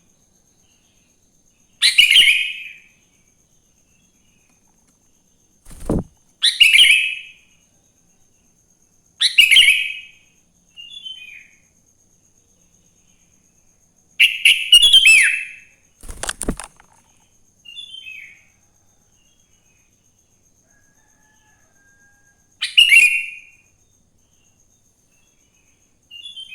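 Sooty-headed bulbul (kutilang) singing loud, short whistled phrases, about five of them a few seconds apart, with fainter short notes in between. Two dull thumps come in, one about six seconds in and another about sixteen seconds in.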